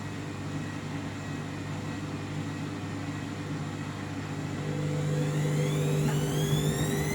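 Candy washing machine on its cottons final spin: the drum running with a steady hum, then from about five seconds in the motor whine rises in pitch and the machine gets louder as the drum speeds up toward 1600 rpm.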